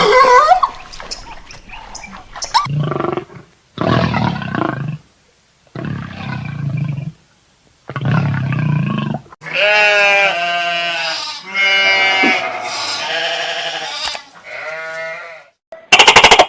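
Recorded animal calls: four short, low calls about a second apart, followed by longer, higher-pitched calls that waver up and down in pitch, and a short loud burst near the end.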